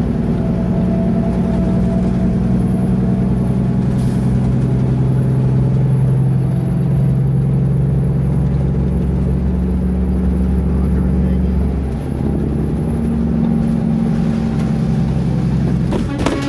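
Engine drone and road noise heard from inside a vehicle cruising at highway speed. The drone is steady, and its pitch shifts about twelve seconds in.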